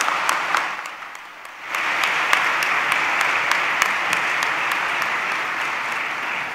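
Audience applauding, many people clapping together. The clapping dips briefly about a second in, comes back as an even wash of clapping, and fades near the end.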